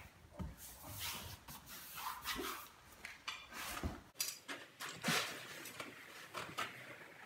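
Hands rubbing and patting over a wooden cabinet skin panel, pressing it down onto spray adhesive: irregular swishes and soft pats against the panel.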